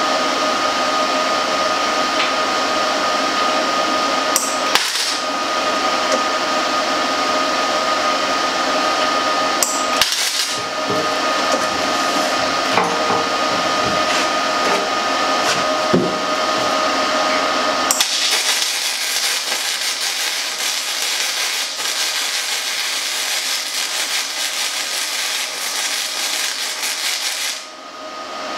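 Steady loud machine noise from workshop equipment: a hiss with a constant motor whine. The whine drops out about two-thirds of the way through, while a finer crackling hiss carries on until a brief dip near the end.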